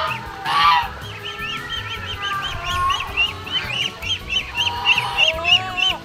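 Mixed flock of domestic geese and ducks calling while they feed: drawn-out goose honks, and from about a second in a fast run of short high calls, about four a second.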